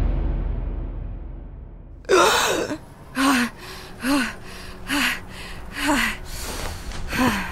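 A low rumble dies away over the first second and a half. Then a woman's voice pants heavily, out of breath, in six ragged gasps about a second apart.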